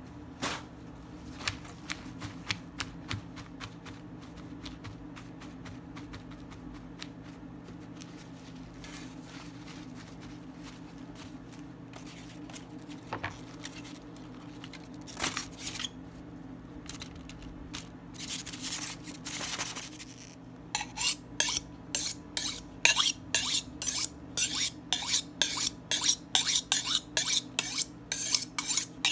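Iceberg lettuce leaves being handled and pulled apart, with scattered soft clicks and a few short crinkling rustles over a steady low hum. About two-thirds of the way in, a knife starts being drawn quickly along a steel honing rod: bright metal scraping strokes, about two a second, much louder than the rest.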